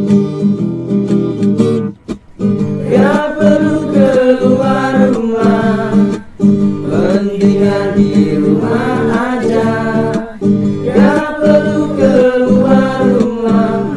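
Acoustic guitar strumming chords, joined about two seconds in by a group of voices singing a song together over it.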